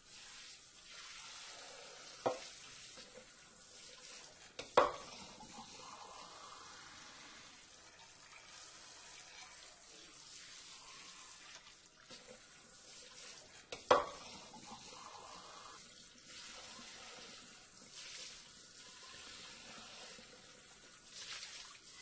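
Water spray hissing steadily over dishes, as in rinsing dishes under a sink sprayer, with three sharp knocks; two of them, about five and fourteen seconds in, are loud.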